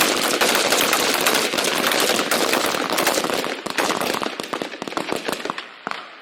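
A firing line of M16 rifles shooting a timed failure drill: many shots overlapping into a dense, continuous crackle that thins to scattered single shots near the end.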